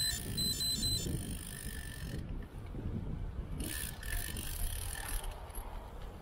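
Bicycle rear hub ticking as the bike coasts, over road and wind rumble, with a short run of high electronic beeps near the start.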